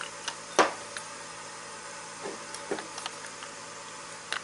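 Clicks and knocks of a truck starter solenoid's housing and end cap being handled and worked apart by hand, with one sharper knock about half a second in, a couple of soft scrapes around the middle and a pair of light clicks near the end.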